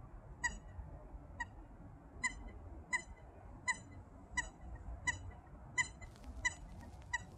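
Eurasian coot calling: a series of about ten short, high, squeaky notes, roughly one every 0.7 seconds, that sound like a toy.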